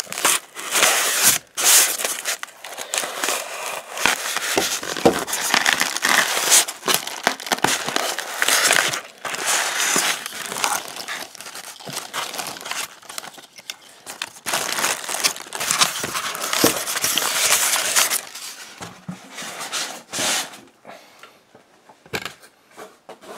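Clear plastic wrap and tape being sliced and torn open on a styrofoam packing box, then a plastic-bagged ornament pulled out of the foam: steady crinkling and rustling of plastic with many small crackles and scrapes, dying down over the last few seconds.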